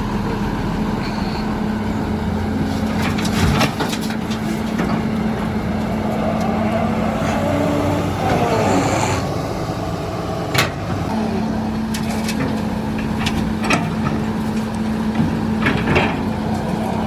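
Diesel engine of heavy earthmoving machinery running steadily, with scattered sharp knocks and clanks; the engine hum drops away for a couple of seconds around the middle, then comes back.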